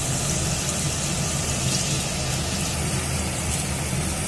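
Potato wedges frying in hot mustard oil in a wok, a steady sizzle over a steady low rumble.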